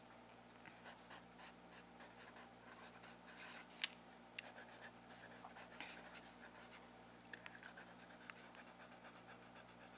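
Wooden pencil writing on a lined paper notepad: faint, scratchy graphite strokes of handwriting, with one sharper tick about four seconds in. A low steady hum sits underneath.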